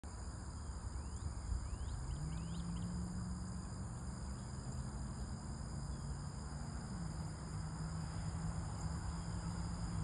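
A steady, high-pitched insect chorus over a low droning hum that shifts in pitch about seven seconds in. A few quick rising bird chirps come between one and three seconds in.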